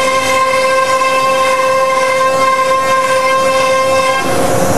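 CNC router spindle running with a steady high whine while the bit cuts a contour through the sheet. About four seconds in, the whine shifts slightly and the cutting noise grows louder.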